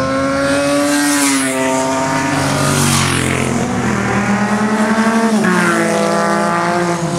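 Classic racing motorcycles running on the circuit, several engine notes at once rising and falling in pitch as the bikes go by, with one note dropping sharply about five and a half seconds in.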